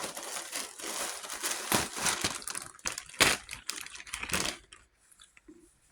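Plastic packaging crinkling and rustling as it is handled, a dense crackle with sharp snaps, stopping about four and a half seconds in.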